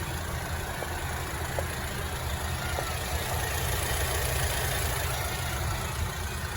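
2017–2021 BMW 320i GT engine idling steadily with the A/C on and its compressor running. The compressor is pumping normally after the recharge, so it does not need replacing.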